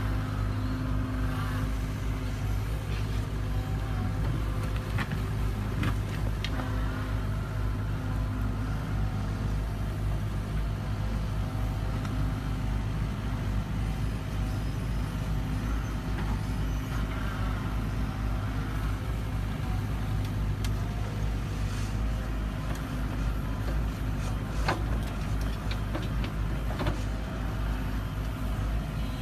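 Hitachi crawler excavator's diesel engine running steadily as the machine digs and shifts soil, with a few sharp knocks scattered through.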